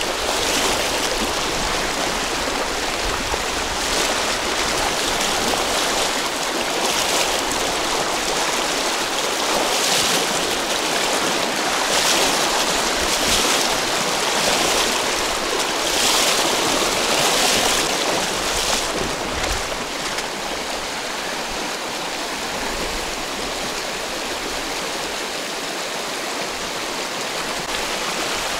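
Fast-flowing mountain river, a steady rushing hiss of water. It is slightly louder and brighter for the first two-thirds, then eases a little.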